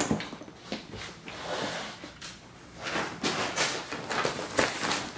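Handling noise from a fabric backpack and clothing: irregular rustles and swishes of material with a few light bumps.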